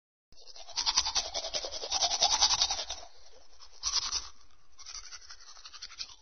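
Teeth being brushed with a toothbrush: rapid, scratchy back-and-forth scrubbing strokes, loudest in the first half, with a short louder burst about four seconds in and softer strokes near the end.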